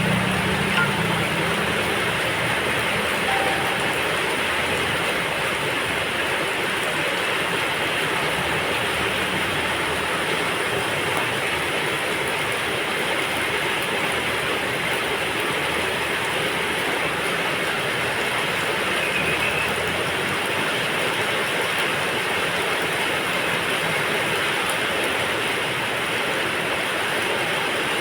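Steady, even rain noise without a break.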